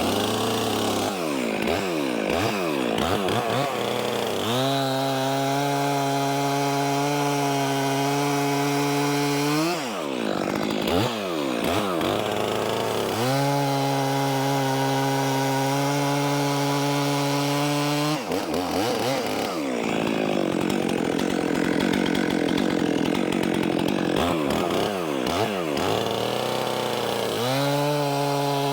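Stihl 400C two-stroke chainsaw cutting firewood logs, held at a steady high pitch for several seconds at a time, three times, with the revs swinging rapidly up and down between these stretches.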